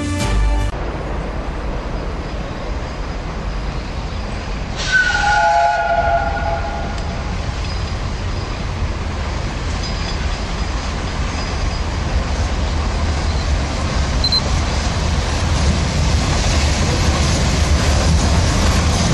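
Peppercorn A1 steam locomotive drifting slowly into the station, a low rumble growing louder toward the end. About five seconds in, a chime-like train whistle sounds for about two seconds.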